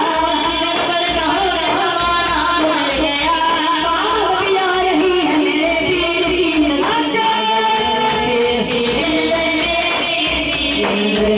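Devotional naat singing: a voice sings a melodic line over a steady rhythmic beat.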